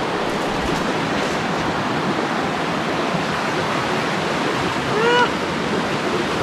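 Steady rushing of a stream flowing under a trail footbridge. About five seconds in, a short high-pitched vocal sound is heard.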